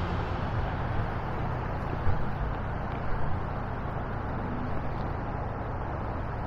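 Steady rushing wind noise on the microphone, with a couple of faint knocks about two and three seconds in.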